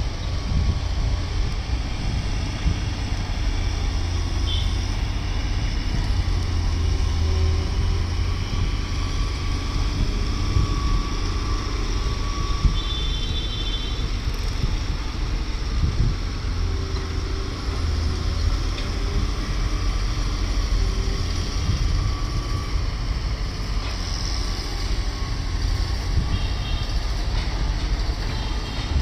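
Heavy construction machinery running: a steady low diesel engine rumble with a faint wavering whine. A few brief high beeps come about four seconds in, near the middle and near the end.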